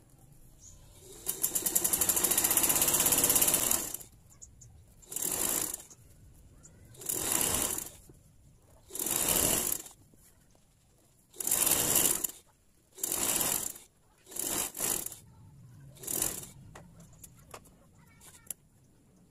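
Sewing machine stitching along a fabric edge: one run of about three seconds, then a string of short bursts of a second or less with pauses between them as the fabric is guided.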